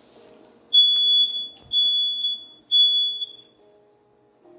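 Smoke alarm sounding: three long, high-pitched electronic beeps in quick succession, then a pause. This is the three-beep pattern a smoke alarm uses for its alert.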